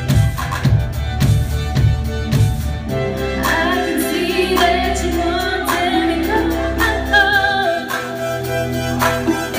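Live pop band playing: a woman singing over bass guitar, keyboards and drums. About three seconds in, the pulsing beat gives way to long held bass and keyboard notes under her wavering voice.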